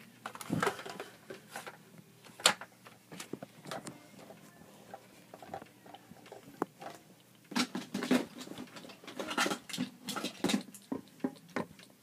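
Irregular clicks, knocks and rustling of small objects being handled and set down, with a cluster of busier handling noise in the second half and one sharp knock about two and a half seconds in.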